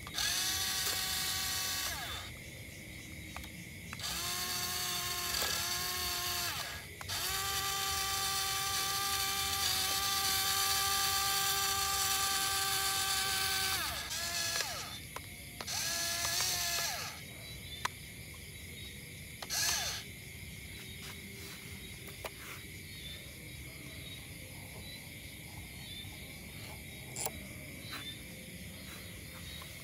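Small electric motor of a toy RC tractor running in several spells of a steady high whine, each dropping in pitch as it winds down. From about halfway on there are only faint scattered clicks and knocks.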